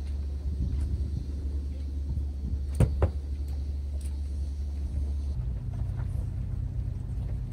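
Steady low rumble, with two sharp knocks close together about three seconds in. A little past halfway the rumble shifts to a slightly higher, humming pitch.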